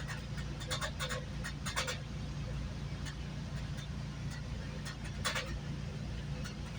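Steady low rumble of a GO Transit passenger train running along the track, heard from inside the coach, with a few short clatters about a second, two seconds and five seconds in.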